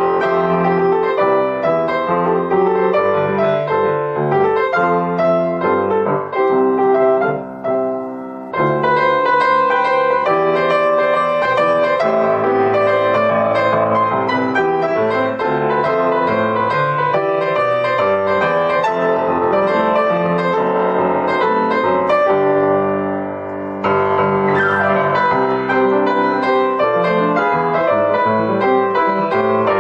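Instrumental background music led by piano, which thins out briefly about eight seconds in and again around twenty-three seconds in.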